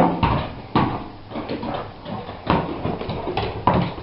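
Irregular sharp knocks and clatters, about four strong ones, from a racquetball and a GoDogGo automatic fetch machine in play.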